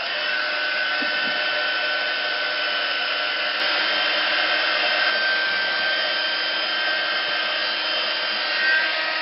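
Handheld craft heat tool running steadily, with a constant fan whine over the rush of air, as it dries wet spray mists on a canvas.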